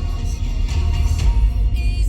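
Pop music with a heavy bass beat, playing in the car.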